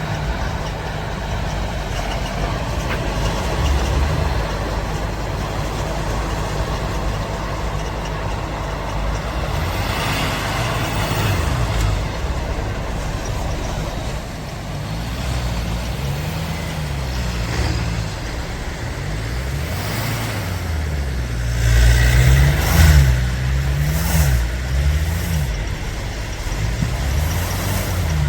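Off-road 4x4 vehicle engines running, revving up and down repeatedly through the second half, with a few louder bursts of noise near the end.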